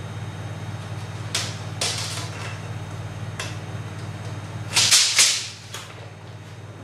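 Short scraping strokes of hand work on a wooden board, over a steady low machine hum that cuts off about five seconds in, just as the loudest pair of strokes sounds.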